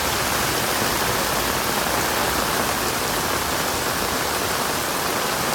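Torrential rain falling on paved paths in an even, steady hiss.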